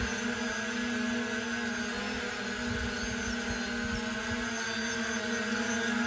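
Parrot Anafi Ai quadcopter hovering close by, its rotors giving a steady, even-pitched drone, with gusts of wind rumbling on the microphone.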